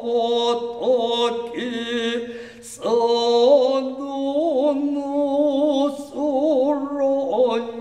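A man chanting in Noh style (utai), holding long notes that waver slowly in pitch. The voice breaks off briefly about three seconds in, with a sharp click, and then takes up again.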